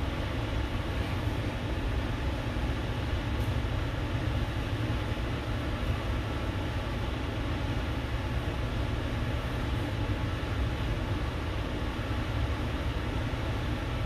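Steady low rumble with a lighter hiss above it, unchanging: background machine or room noise.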